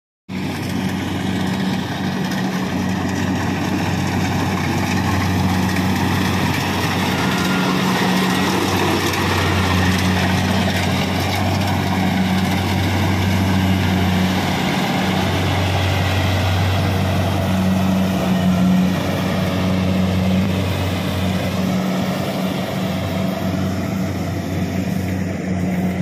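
Kubota DC-70 rice combine harvester running steadily while it cuts standing rice: a constant low engine hum with a broad mechanical whirr over it.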